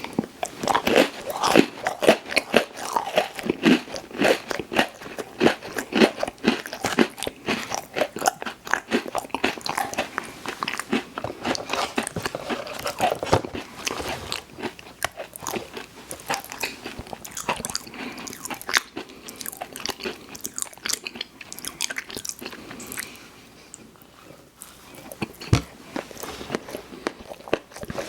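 Close-miked eating of sweet snacks: a steady run of bites and chewing with crisp, irregular clicky mouth sounds, easing off briefly near the end before picking up again.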